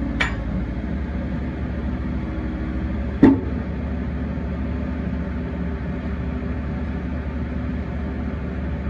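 Volvo ECR88D compact excavator's diesel engine running steadily while the boom and arm are worked, with a short click just after the start and a louder clank about three seconds in.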